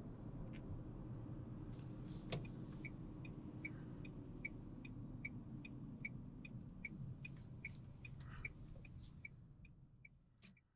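Low road and engine rumble inside a moving Dacia Sandero Stepway's cabin. From about two and a half seconds in, the turn-signal indicator ticks steadily, about two and a half ticks a second, as the car turns off the road. Everything fades out near the end.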